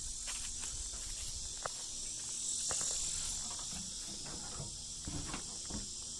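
Insects chirping in a steady high-pitched hiss in the background, with faint footsteps and a few light handling knocks near the end.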